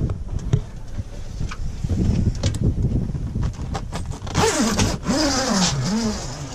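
Zipper on a canvas slide-out shower enclosure being pulled shut: one buzzing zip about four and a half seconds in that lasts nearly two seconds, its pitch wavering as the pull speeds up and slows. Lighter rustles and clicks of the fabric come before it, over a low rumble.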